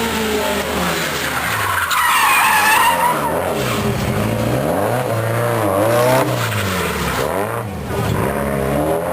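Race car engine being revved, its pitch falling and rising several times. The tyres squeal about two seconds in as the car slides.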